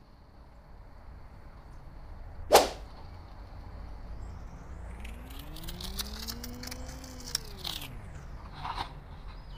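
A sharp swish about two and a half seconds in, then a longer whoosh that rises and falls in pitch with crackling over it, from about five to eight seconds in, above a low steady hum.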